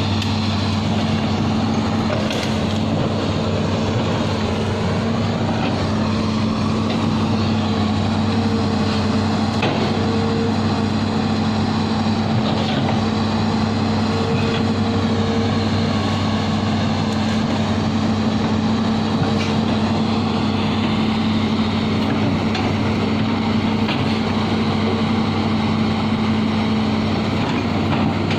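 Bulldozer's diesel engine running steadily, with a few faint clanks now and then.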